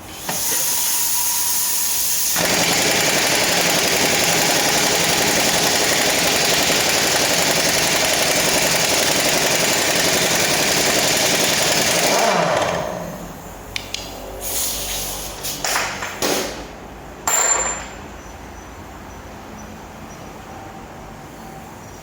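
Pneumatic impact tool hammering in one long continuous burst, growing heavier about two seconds in, then winding down with a falling pitch after about twelve seconds. It is driving the car's lower ball joint in under pressure. A few short clicks and knocks follow.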